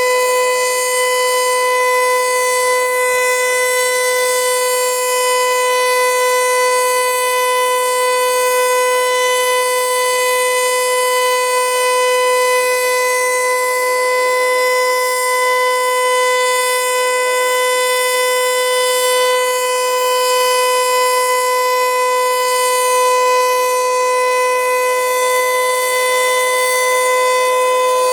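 Federal Signal Eclipse 8 electronic outdoor warning siren sounding one steady, unwavering tone during a test, holding the same pitch and loudness throughout.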